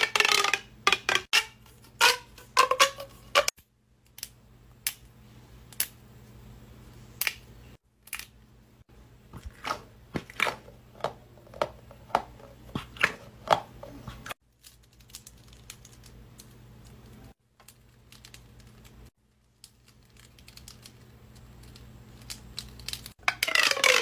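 Plastic fidget toys handled: ridged pop tubes stretched and squeezed, their folds popping with quick clicks and snaps, along with squishy balls being squeezed. The clicks come in bunches broken by a few short silent gaps, with brief sliding tones from the stretched tube near the start and again near the end.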